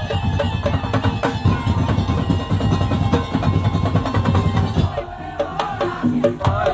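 Live percussion-driven music: drums beating a fast, even rhythm of about four strokes a second over a heavy low drum sound. About five seconds in the heavy low drums stop and a lighter beat carries on under a wavering melodic line.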